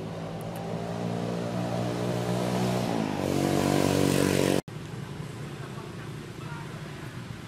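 A motor vehicle's engine running and growing louder, stepping up in pitch about three seconds in, then cut off suddenly at about four and a half seconds. A quieter steady hiss follows.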